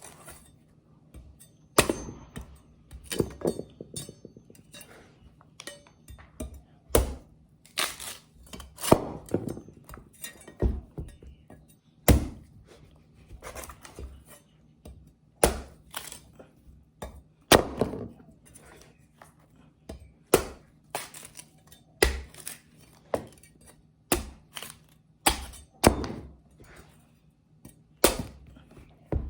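Hand-forged knife chopping into the fibrous husk of a whole coconut: some twenty unevenly spaced thunks and cracks, roughly one a second, as the husk is hacked away to reach the shell.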